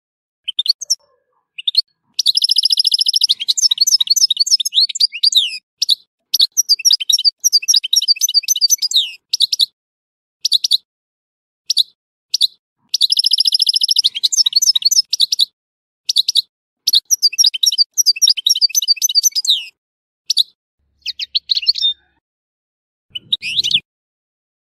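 Algerian goldfinch (European goldfinch) singing: long runs of fast twittering and chattering phrases, including rapid trills, broken by short silent pauses.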